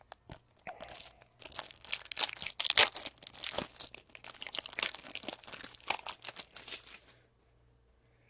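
A trading-card pack's wrapper being torn open and crinkled by hand: a few sharp clicks, then a dense run of crackling and tearing that stops about seven seconds in.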